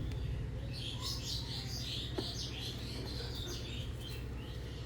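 A small bird chirping in a quick run of high notes for about three seconds, over a steady low hum.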